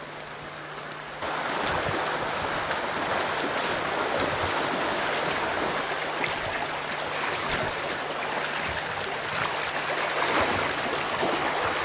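Steady rushing of a creek's flowing water, starting suddenly about a second in.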